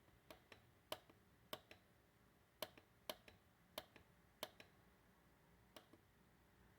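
About nine faint, sharp clicks at uneven intervals: a radio alarm clock's minute-setting button being pressed repeatedly.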